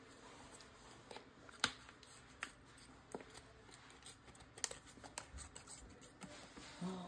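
Scissors snipping through a vacuum-formed clear plastic retainer sheet, trimming the excess away from the dental model: a series of irregular, sharp snips.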